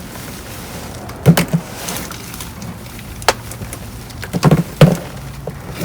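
A series of knocks and clunks amid rustling as trash in a dumpster is shifted and cans of dog food are picked out. There is a cluster of knocks about four and a half seconds in, ending in one loud clunk.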